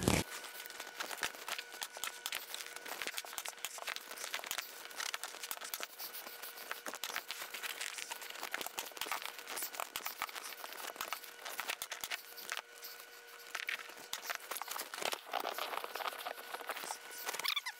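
Vinyl seat cover being handled and pulled taut over a foam golf-cart seat on a plywood board: dense crinkling and rustling with many small clicks, under a faint steady hum.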